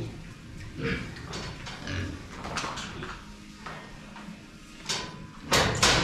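Pigs grunting and shuffling in sawdust bedding, with irregular short hisses from a hand pump sprayer being used on the pens. The two loudest bursts come close together near the end.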